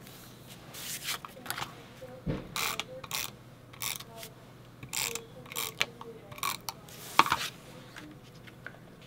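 Adhesive tape runner drawn in short strokes across the back of a cardstock photo mat, about a dozen quick rasping passes, with the cardstock being handled and pressed down. A sharper tap stands out a little after seven seconds.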